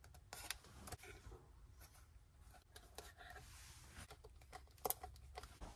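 Faint handling of a hard-plastic RC truck body shell: scattered light clicks and scuffs as small plastic detail parts (door handles, hood details) are pressed into it, with the sharpest click nearly five seconds in.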